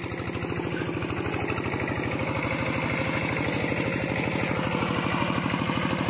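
Engine of a two-wheel walking tractor (hand tractor) running steadily in a flooded rice paddy, with an even, fast chugging rhythm.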